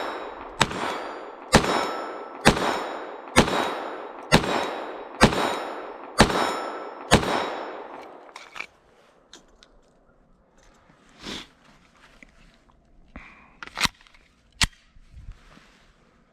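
Glock 44 .22 LR pistol firing eight shots at a steady pace, a little under a second apart, each trailing off in echo. A few fainter metallic clicks and handling knocks follow after the firing stops.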